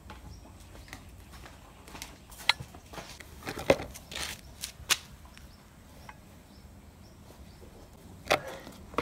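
Laundry being handled at a metal drying rack and a plastic basin: a handful of short light clicks and knocks, with cloth rustling, over a quiet outdoor background.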